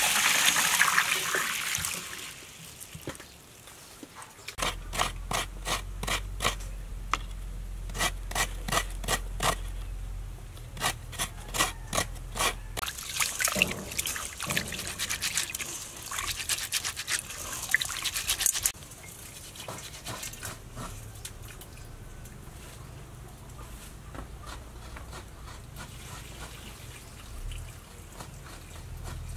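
Water pouring into a metal bowl of seeds, then hands rubbing and swishing the wet seeds against the bowl in quick repeated strokes as they are washed. The rubbing stops about two-thirds of the way through and it is quieter after that.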